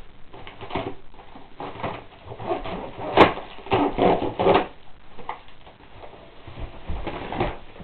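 Packaging of a new longboard being handled and pulled open: irregular rustling, with a sharp click about three seconds in.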